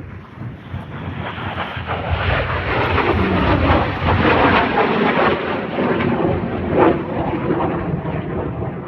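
Jet aircraft making a display pass, its engine noise building over a few seconds, loudest in the middle, then easing off.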